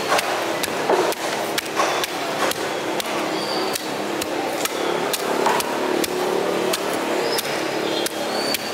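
Sharp knocks of blades striking wooden chopping blocks, a few a second and unevenly spaced, over a steady background din.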